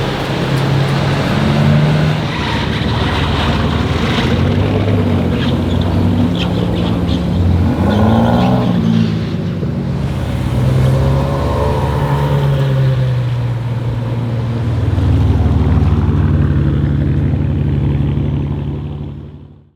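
Aston Martin DBS Superleggera's 5.2-litre twin-turbo V12 running at low revs, with a few sharp exhaust pops and crackles between about 4 and 6 seconds in. The engine note rises and falls about 8 seconds in and again around 11–12 seconds, then the sound fades out at the very end.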